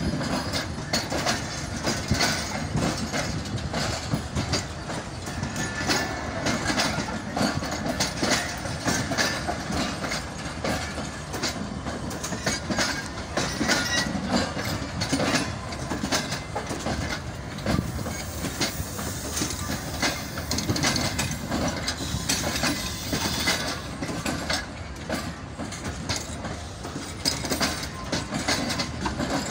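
Passenger coaches of a departing express train rolling past, a steady rumble with wheels clicking and clattering over the rail joints.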